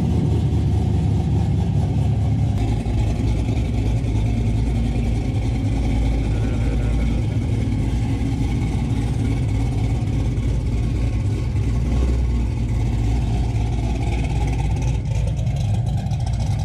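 A car's engine and exhaust running steadily with a low rumble, no revving.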